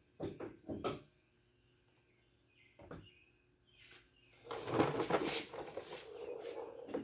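Tool and hardware handling inside a truck door: a few light clicks in the first second, another click near the middle, then a couple of seconds of scraping and rattling as the door handle's mounting bolt is worked.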